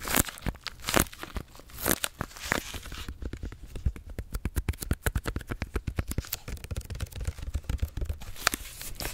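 Fingernails tapping, scratching and squeezing plastic pudding cups in their clear plastic tray, making crinkling crackles, then a fast run of rapid taps from about three seconds in.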